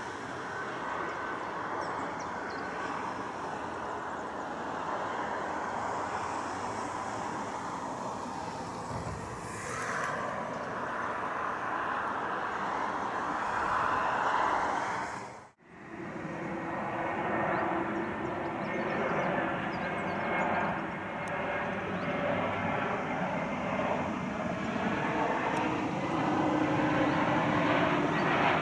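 Cessna 510 Citation Mustang's twin-turbofan jet engines as it lands and rolls out. About halfway through there is a sudden edit cut, and then an Airbus A320 on final approach, its jet engines running steadily with several steady tones.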